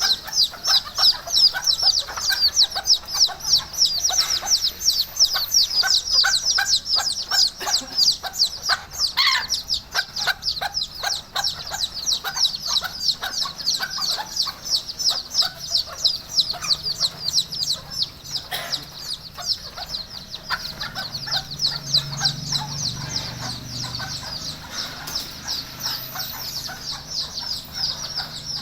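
A flock of bantam chickens clucking and calling while they feed, over a continuous fast, high-pitched peeping several times a second.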